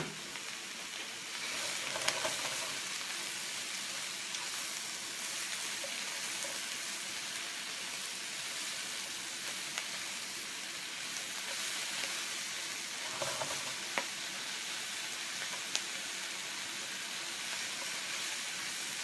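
Squid, mushrooms and water spinach stir-frying in butter in a frying pan over high heat: a steady sizzle that swells about a second in. A few sharp clicks of wooden chopsticks against the pan come through it as the food is turned.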